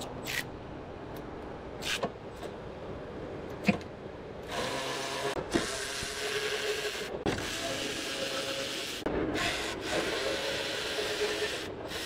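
Hands working on the car to get at the engine computer: a few sharp clicks and a knock, then several seconds of scraping and rubbing with a faint squeak, broken by two short pauses.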